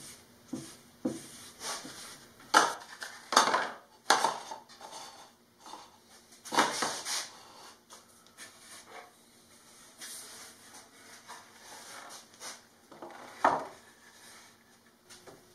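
Irregular knocks and clatter of a wooden box being lifted, shifted and set down on a workbench. The loudest knocks come in a cluster about three to four seconds in, again around seven seconds, and once more near the end, with quiet handling noise between.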